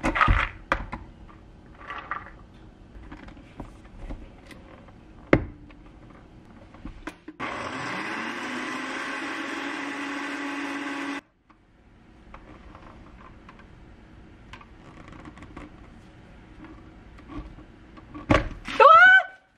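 Blender blitzing pomegranate seeds into juice. The motor spins up with a rising whine, runs steadily for about four seconds and cuts off suddenly, with knocks and clatter from handling the jar before and after. Near the end comes a loud, short rising sound.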